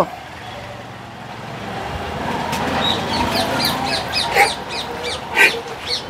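Street background with a steady hum. About halfway through comes a quick run of high chirps, then a few short, sharp calls about a second apart.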